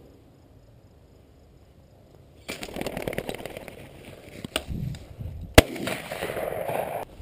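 Tall grass rustling and swishing as someone walks through it with a handheld camera. It starts suddenly about two and a half seconds in and carries two sharp knocks, the second the loudest.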